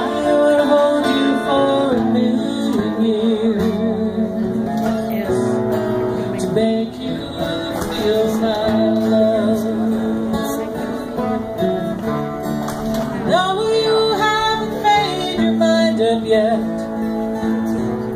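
Live acoustic guitars strumming a slow ballad, with a woman singing over them.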